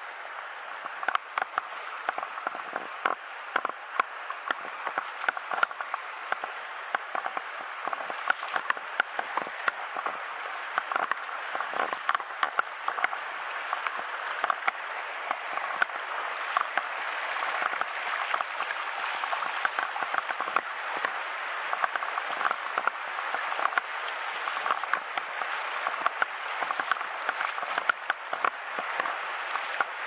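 Shallow river riffles rushing and splashing over rocks: a steady rush with many small, sharp ticks of water close by.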